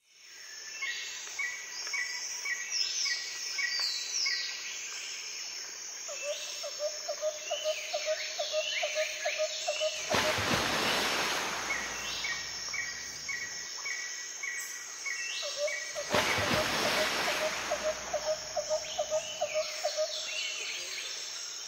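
Ambient nature-sound soundtrack: repeated bird-like chirps over a rapid pulsing insect-like trill, with a rushing noise that swells twice, about ten and sixteen seconds in. The same sequence of calls comes round a second time, as in a loop.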